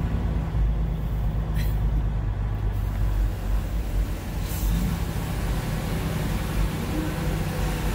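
Semi truck's diesel engine running steadily, heard as a low drone from inside the cab, with two short hisses about a second and a half and four and a half seconds in.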